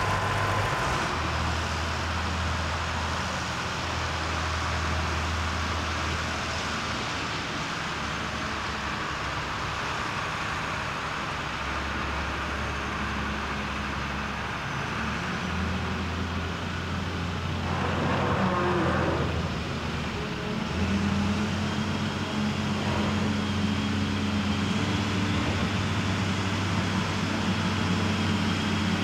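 Diesel engine of a wheel loader working on a road construction site: a steady low drone that shifts in pitch as the machine moves, with a short louder burst of noise partway through, growing somewhat louder in the last third.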